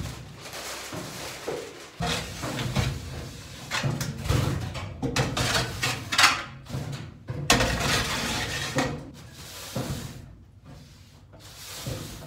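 Shovel and push broom scraping wet manure off the metal floor of a livestock trailer, in irregular strokes with a few sharper knocks.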